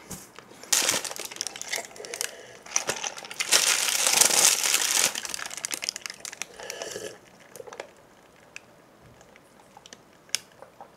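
Thin plastic bag crinkling around a paper drink cup as the cup is handled and lifted, loudest about four seconds in, then dying down once the drinking starts.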